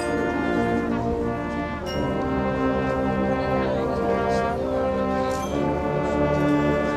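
Marching band brass section playing sustained chords, with the harmony changing every second or two.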